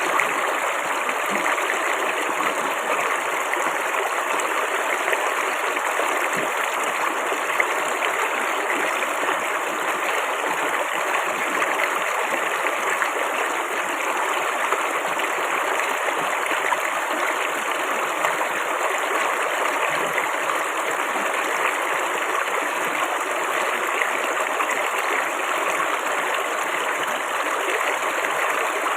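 Flowing water babbling steadily, with an even, fine splashing texture.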